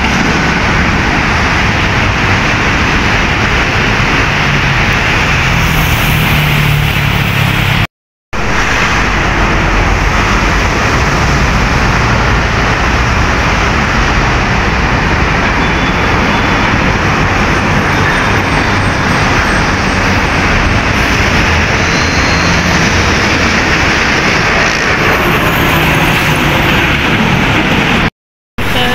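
Loud, steady city road traffic with diesel tractor-trailer fuel tankers driving past: engine rumble and tyre noise. The sound cuts out for a moment twice, about 8 seconds in and near the end.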